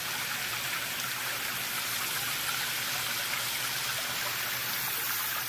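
Garden hose spray nozzle on a shower pattern spraying water onto an aluminium rifle stock and a flat panel: a steady hiss of spray and splashing.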